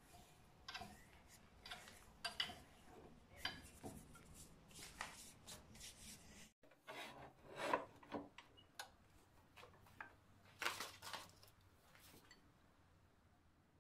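Hands rubbing, scraping and lightly knocking a wooden lathe workpiece and metal tools: a string of short, irregular scrapes roughly once a second, stopping about a second before the end, over a faint low hum.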